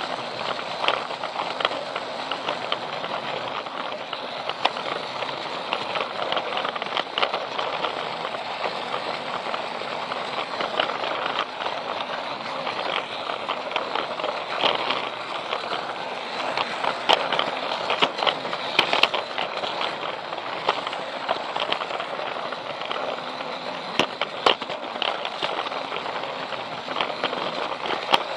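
Plarail battery-powered toy train running on plastic track: the motor and gearbox run steadily while the plastic wheels rattle and click over the track joints, with sharper clicks here and there.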